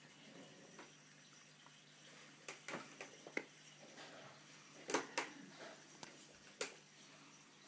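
Quiet steady hum and watery hiss of an aquarium with a running internal filter, broken by several sharp clicks and knocks, the loudest pair about five seconds in.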